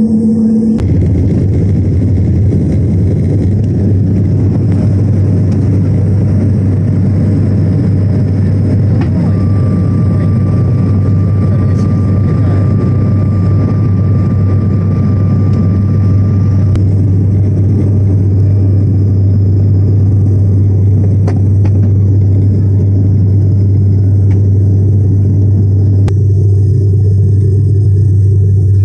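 Sukhoi Superjet 100's two SaM146 turbofans and airflow, heard loud and steady from inside the cabin during takeoff and climb-out. The low rumble comes in suddenly about a second in. A steady high whine sounds for several seconds around the middle.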